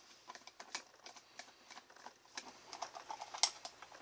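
Faint, irregular small clicks and taps of hard plastic parts being handled and worked loose as a baby swing's plastic drive gearbox is taken apart, with one sharper click about three and a half seconds in.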